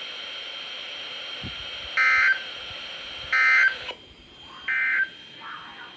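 NOAA Weather Radio Emergency Alert System end-of-message data bursts: three short, buzzy digital bursts a little over a second apart, over receiver hiss and a steady thin high tone.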